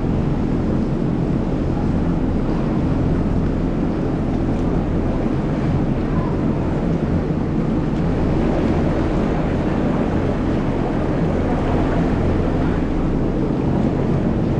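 Jet ski engines running at low speed: a steady low engine hum under an even rushing noise of water and wind.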